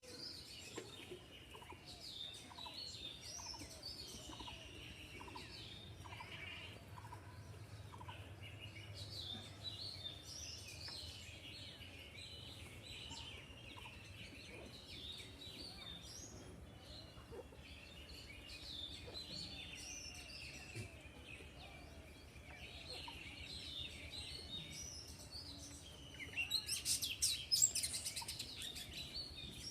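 Birds chirping with many short calls, some falling in pitch, over a low steady hum. About 26 seconds in, a louder burst of rapid clicks lasts a couple of seconds.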